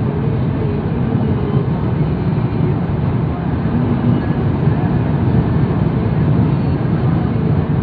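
Steady rumble of road and wind noise inside a moving car's cabin.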